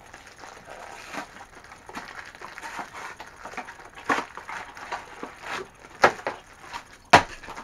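Crackling and tearing of small cardboard blind boxes and the foil bags inside being opened and handled, with scattered clicks and a few sharp knocks, the loudest about seven seconds in.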